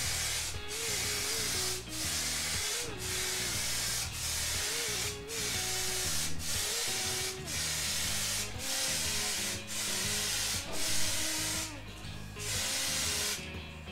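Soft99 clear lacquer aerosol spray can hissing in repeated passes, about one a second with brief breaks between, as clear coat is laid on. Background music plays underneath.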